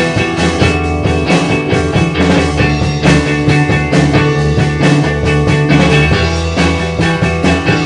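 Rock band playing: drums, bass and electric guitar, with drum hits running steadily under held guitar and bass notes.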